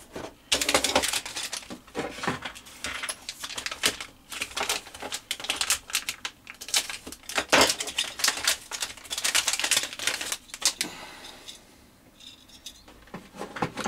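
Small plastic parts and packaging handled on a desk: a quick, irregular run of clicks, taps and crinkles that thins out about eleven seconds in.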